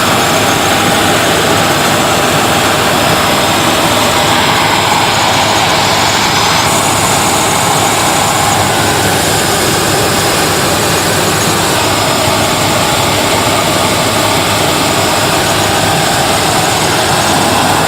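Helicopter in flight: a loud, steady drone of engine and rotor.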